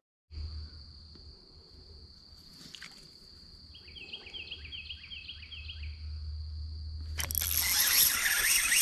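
Quiet creekside background with a steady high whine and a brief run of bird-like chirps; about seven seconds in, the drag of a spinning reel starts buzzing loudly as a big fish, a blue catfish, takes line.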